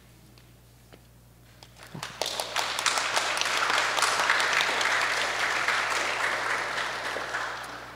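Audience applauding. After about two seconds of quiet, the clapping starts, swells, and dies away near the end.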